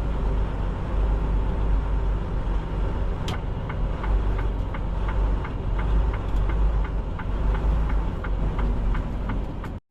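Semi-truck cab while driving: steady low engine drone and road noise. From about a third of the way in, a faint regular ticking, about three a second.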